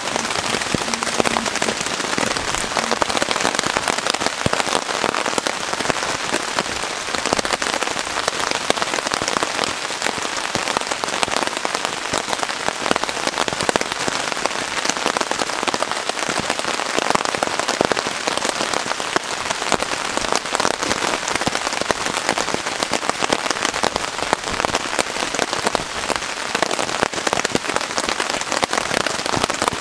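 Steady rain falling on a tarp shelter: a dense, even hiss of countless small drop impacts that keeps up without letting off.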